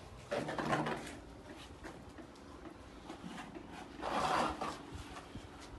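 Two short scraping or rubbing noises, the first about half a second in and the second about four seconds in.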